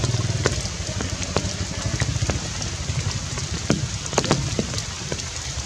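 Steady rain falling, with sharp drips striking close by and several loud ones around four seconds in, over a steady low rumble.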